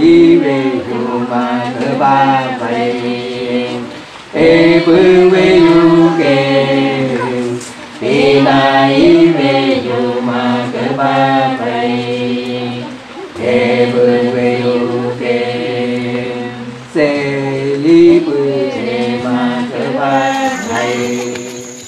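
A group of voices singing a chant without instruments, in about five phrases of a few seconds each, with a low note held beneath and short breaks between phrases.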